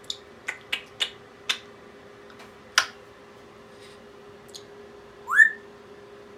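Pet parrot making six quick sharp clicks, then about five seconds in a single loud whistle that rises in pitch.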